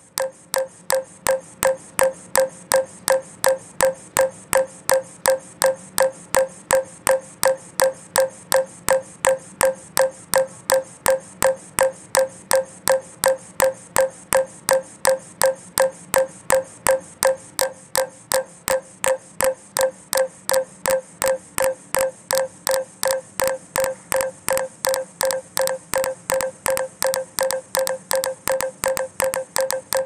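Minimal looped score: a short Snapchat snap recording repeated as a steady click about three times a second over a held mid-pitched tone. Two copies of the loop drift in and out of phase with each other, so in the second half the clicks fall unevenly and come in pairs.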